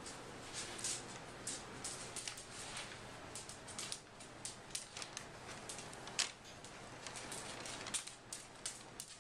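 Crumpled brown kraft packing paper crackling and crinkling in a cardboard box as a cat shifts and digs through it: irregular sharp crackles several times a second, with one louder crackle about six seconds in.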